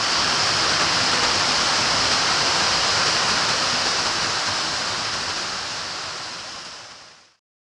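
Waterfall: a steady rush of falling water that fades out over the last three seconds.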